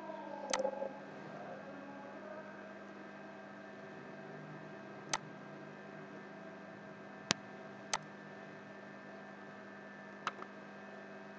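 Five single computer mouse clicks, spaced a second or more apart, over a steady electrical mains hum.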